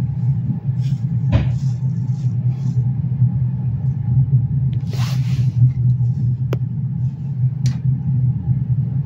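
Steady low rumble of a Finnish Intercity passenger train running along the track, heard from inside the coach, with a few sharp clicks and a brief hiss about five seconds in.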